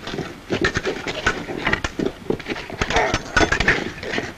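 Sword blades (épées and thrusting rapiers) clashing in a quick, irregular run of sharp strikes, with men's shouts mixed in.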